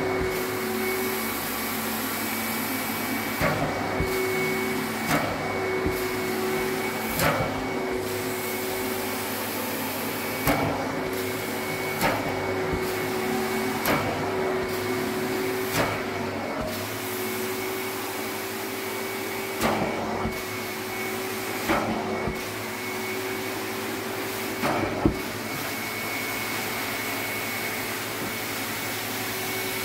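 Carpet extraction machine's vacuum running steadily with a constant whine as the cleaning wand is drawn over wet carpet. Short knocks and brief dips in the suction hiss come every couple of seconds, with the strokes of the wand.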